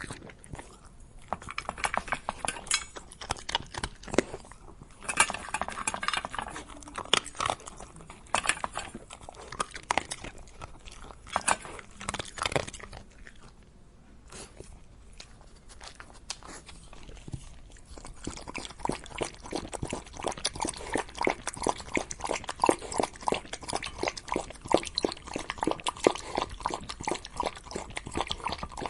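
Dog chewing and crunching food in irregular bursts of sharp crunches with short pauses between. About eighteen seconds in, it gives way to a faster, denser run of clicking chews.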